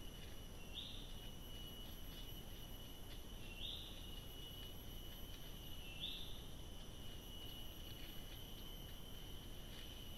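Faint tropical forest ambience picked up by a camera trap: a steady high-pitched whine, with three short rising chirps about two and a half seconds apart over a low hiss.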